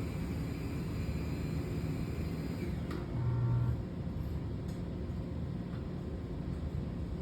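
Office coffee machine running with a steady low hum. About three seconds in, a click is followed by a short, louder low buzz lasting about half a second.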